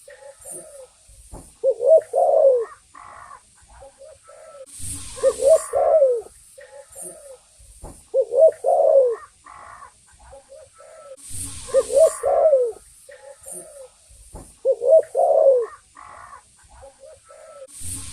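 Spotted dove (tekukur) cooing in its repeated rolling phrase, about once every three seconds. A short burst of rustling noise comes between some phrases.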